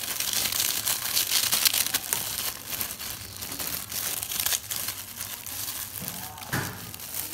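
Plastic bag crinkling and rustling as krupuk crackers are shaken out of it, with the dry crackle of the crackers landing on the paper-wrapped food. There is a short pitched sound near the end.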